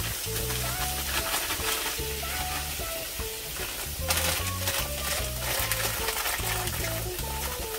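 Meat and vegetables sizzling and frying in a skillet as they are stirred, with a louder surge of sizzling about four seconds in as more vegetables are tipped into the hot pan. Background music with a steady bass line plays throughout.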